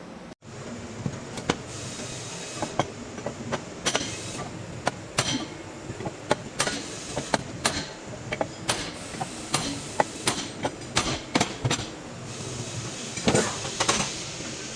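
A series of sharp, short knocks, roughly one to two a second at uneven spacing, from tools working on a rear wheel bearing assembly, over a steady hiss.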